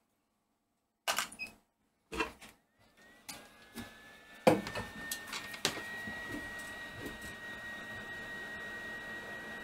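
Clicks and knocks of tools being handled, then a Yihua 858D hot air rework station starts blowing: a thin fan whine rises a little and settles into one steady tone over a hiss of air, heating the board to desolder the shorted MOSFET.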